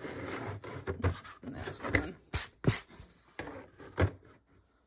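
Hands sliding and shifting a canvas panel across a cluttered work table: a scraping rustle at first, then a few knocks as the board is pushed and set in place.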